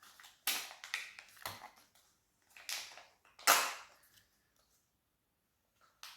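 A Kinder Joy egg being unwrapped and opened: a run of short crinkling and crackling noises from its foil wrapper and plastic shell, the loudest about three and a half seconds in, then a quiet pause.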